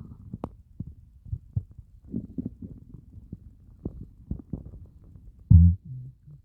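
Empty stomach gurgling during a fast of over 30 hours: a string of small low pops and bubbling, then a loud, short, low growl near the end that tails off.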